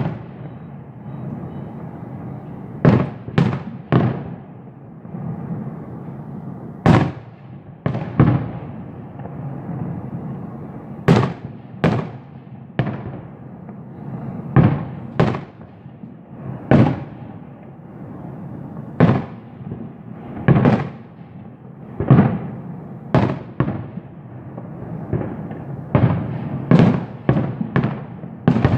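Fireworks going off: a long run of sharp bangs at irregular intervals, roughly one every second or two and sometimes two or three close together, each with a short echoing tail, over a steady background of rumbling noise.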